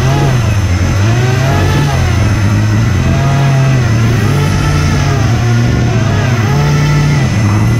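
An RC hovercraft's HP server fans running hard, their pitch repeatedly rising and falling as the throttle is worked, over a steady low hum.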